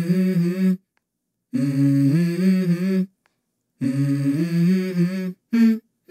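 Background music: a wordless hummed vocal melody that steps between a few low notes, in short phrases broken by complete silences.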